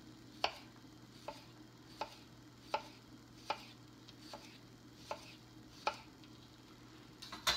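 Knife slicing a cucumber on a wooden cutting board: a sharp tap of the blade on the board about every three-quarters of a second, with a louder clatter just before the end.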